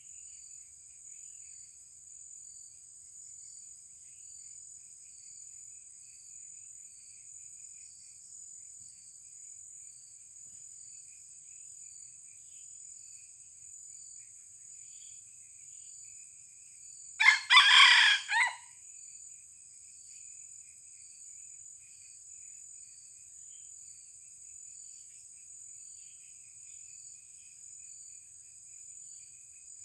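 A young red junglefowl cock crows once just past the middle, a short crow of about a second and a half, over a steady high-pitched drone of insects.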